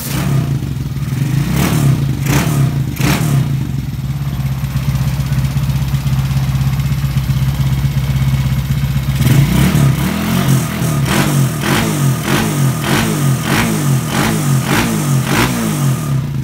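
Honda Fame step-through's Tiger engine, a small horizontal single-cylinder, idling steadily, then from about nine seconds in blipped over and over, about two quick revs a second.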